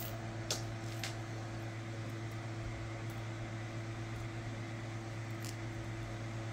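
Steady low machine hum, with a few faint light clicks of jewelry pieces being handled on a table, twice near the start and once near the end.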